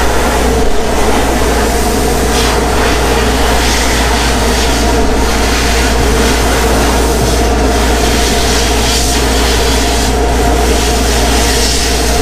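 Kelco abrasive blaster running steadily: a continuous hiss of compressed air and abrasive from the blast nozzle, with a steady low hum underneath.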